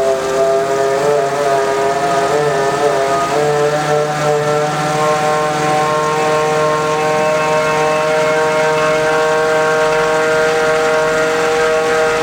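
4WD viscous coupling giving a loud, whining moan as it is forced to slip during a break-in of its internal plates; this is the abnormal noise the break-in is meant to cure. The pitch wavers for the first few seconds, then settles into one steady tone.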